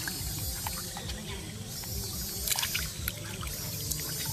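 Water splashing and sloshing in a basin as hands rub and wash small fish, with a few sharper splashes about two and a half and three seconds in, over a steady low rumble.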